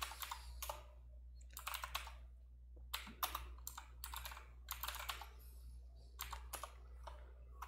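Computer keyboard being typed on in short bursts of keystrokes with pauses between, over a faint steady low hum.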